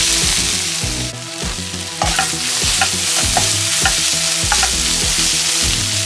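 Vegetables and scrambled egg sizzling in a hot pan over high flame while a wooden spatula stirs them, with short knocks and scrapes of the spatula against the pan.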